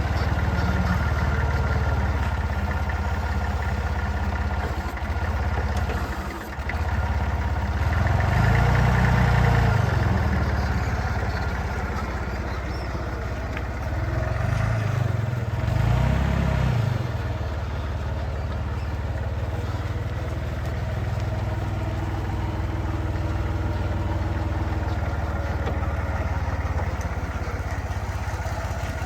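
Hyster S50C forklift engine running steadily, speeding up and settling back twice, about a third of the way in and again about halfway through.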